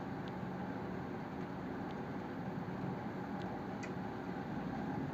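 Steady background room noise with a faint low hum and a few faint ticks.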